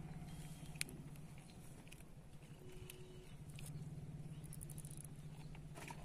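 Faint, low, steady hum of a small engine running, with a few light clicks over it.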